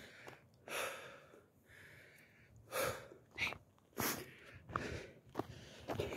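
A person breathing close to the microphone: a handful of separate breaths, a second or two apart, with quiet between them.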